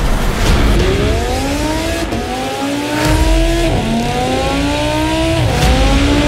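A car engine accelerating hard, its pitch climbing steadily and dropping back twice at upshifts, over a deep rumble.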